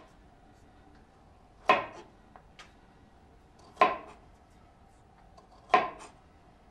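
Kitchen work: three sharp knocks of utensils, about two seconds apart, each with a short ring, over a faint steady background.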